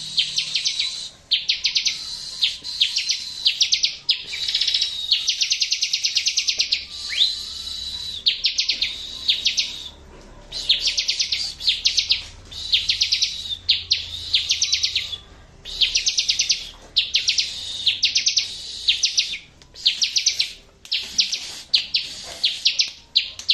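Bar-winged prinia (ciblek) song used as a bird-training master recording: fast, high-pitched trilled chattering phrases, each about a second long, repeated over and over with short pauses.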